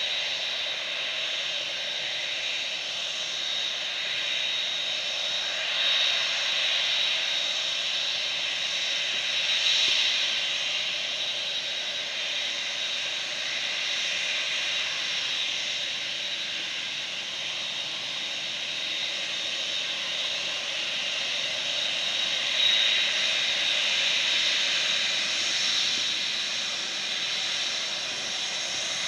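The jet engines of a Boeing 747 freighter taxiing on the runway make a steady high whine over a rushing hiss, swelling a little a few times.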